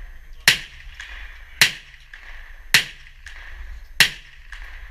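Gunshots: four single shots fired at a steady pace, about one every second and a bit, each a sharp crack with a short tail.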